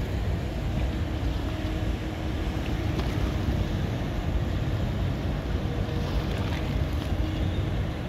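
Steady low rumble of a harbour ferry's engine, with water rushing and wind buffeting the microphone, and a faint steady hum running through it.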